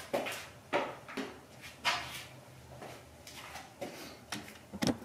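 A series of short scrapes and knocks, about six in five seconds and loudest about two seconds in: a person moving about and handling things.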